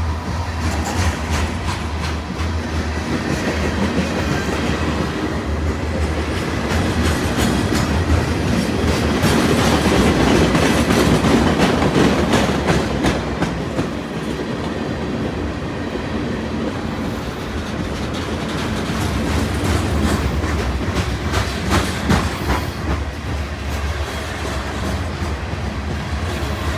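Freight train cars rolling past, wheels clicking over rail joints over a steady rumble that swells about ten seconds in.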